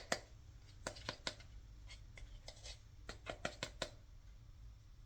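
Faint, scattered light clicks and taps, about a dozen over four seconds, from a plastic scoop and containers being handled while a scoop of creatine powder is added to a shaker cup. A low steady hum of room tone lies under them.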